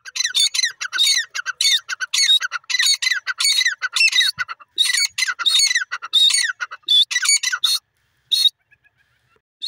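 Grey francolin calling: a fast run of loud, shrill repeated notes, each sliding down in pitch, that breaks off about eight seconds in, followed by one more sharp note.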